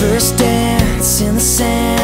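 Country-pop song playing as the soundtrack, in an instrumental stretch between sung lines: guitar notes over a beat with cymbal hits.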